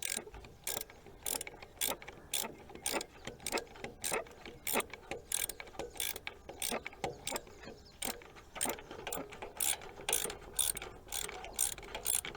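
Socket ratchet clicking in a steady run of short strokes, about two to three clicks a second, as a long starter mounting bolt is backed out.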